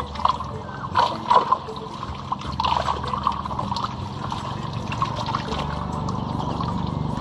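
Water splashing and trickling in a fish-trap net as trevally thrash at the surface, with irregular spatters, over a steady low hum.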